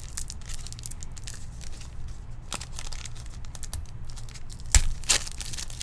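Foil trading-card pack wrapper crinkling and tearing as it is opened and handled, with two sharp snaps near the end.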